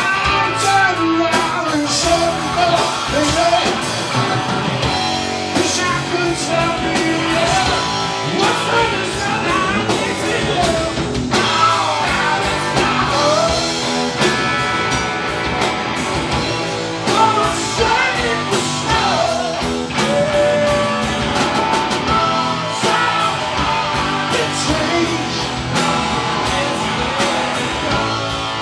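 Live rock band playing loud, with electric guitars, bass guitar and drum kit.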